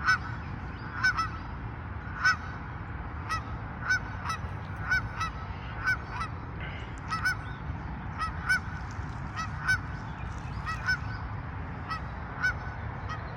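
Two geese honking over and over, about one honk a second, some in quick pairs, set off by a person and a dog coming near.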